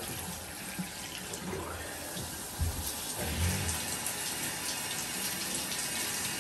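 Water spraying from a handheld shower head onto a dog's thick, wet coat in a bathtub. It is a steady hiss that grows louder about three seconds in.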